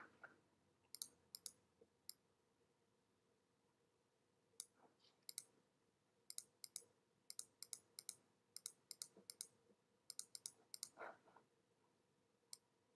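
Faint, sharp clicks of a computer mouse and keyboard in quick clusters: a few about a second in, a dense run from about six to eleven seconds, and a single click near the end, over quiet room tone.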